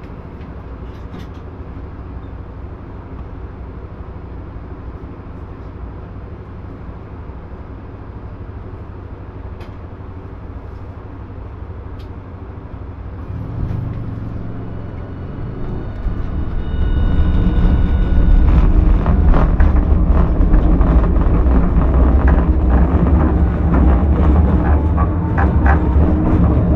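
Inside a streetcar: a steady low hum while the tram stands waiting. About 13 seconds in it pulls away, and the motors and wheels on the rails build into a loud low rumble with rapid clicks and a faint rising whine.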